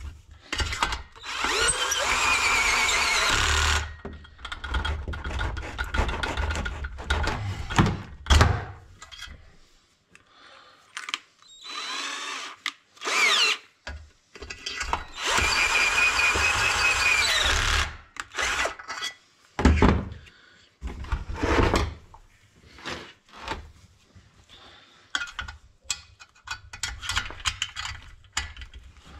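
Cordless drill-driver driving in the bolts of a chainsaw's welded muffler, running twice for a few seconds each, about a second in and again near the middle, its pitch rising and falling. Shorter whirrs and knocks of tools come between and after.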